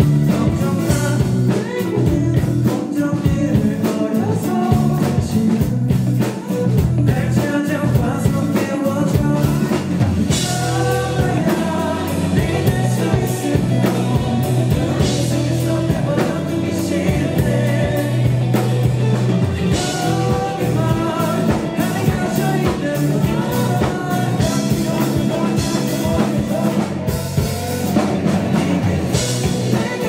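Live rock band performing a song with a singer, electric bass and drum kit, loud and steady, with cymbal crashes every few seconds.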